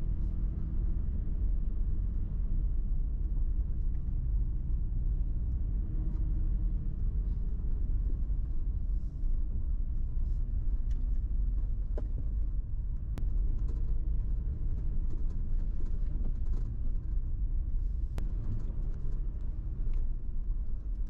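Inside a Toyota 4Runner driving slowly on a gravel road: steady low road and engine rumble, with a few sharp ticks about halfway through and again near the end.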